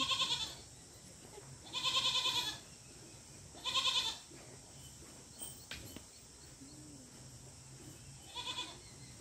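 An animal bleating four times: short wavering calls about two seconds apart, the last one fainter, near the end.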